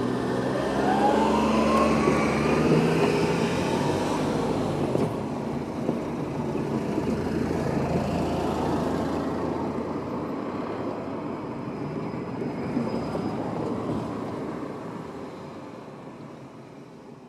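Road vehicles driving over a level crossing, one accelerating with a rising engine note in the first few seconds. The traffic noise fades out near the end.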